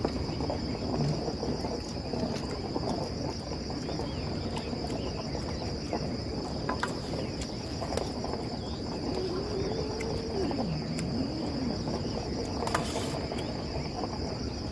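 Crickets chirring in a steady, unbroken high-pitched trill, with a few faint clicks from the meal beneath.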